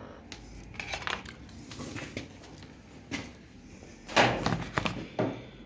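Hard objects being handled: scattered clicks and light knocks, with a louder cluster of knocks and rattles about four seconds in.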